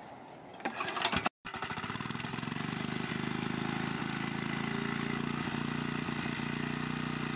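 Small engine of a portable irrigation water pump starting: a short loud burst about a second in, then the engine running steadily at an even speed. The owner judges the engine to be overdue for an oil change and servicing.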